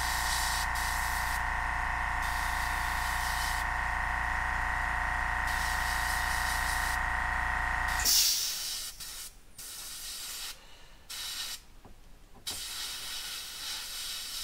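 Iwata HP-C airbrush hissing in short on-and-off bursts as the trigger is worked to spray paint. Under it a motor hums steadily, then cuts off suddenly about eight seconds in, leaving only the airbrush bursts.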